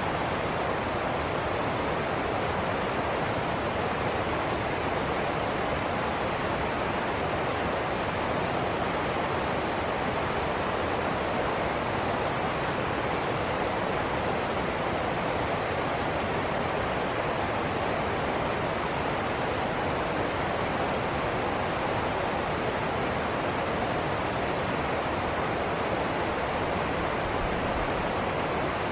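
River water rushing over rocks through a small cascade and foaming riffle: a steady, unbroken rush.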